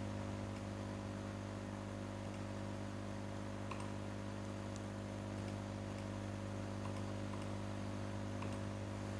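Steady electrical mains hum, with a few faint computer mouse clicks scattered through the second half.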